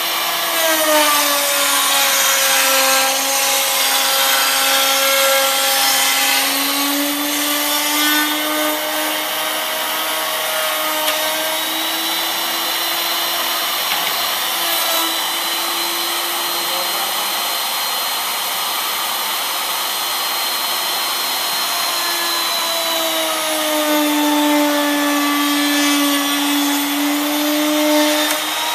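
Router motor in a table-mounted pin router running steadily while its bit cuts wood, following a template against the guide pin. The motor's whine dips in pitch as the cut loads it, about a second in and again near the end, and recovers in between.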